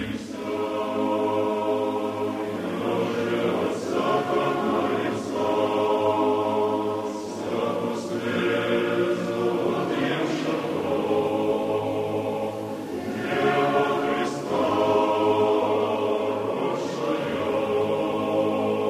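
Choir singing a slow church chant: sustained chords in phrases of a few seconds each, separated by short breaks.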